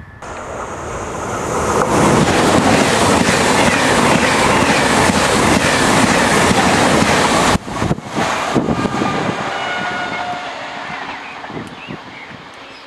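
TGV high-speed train passing close by at speed: a rushing noise that builds over the first two seconds and stays loud for several seconds. It drops sharply about seven and a half seconds in, then dies away.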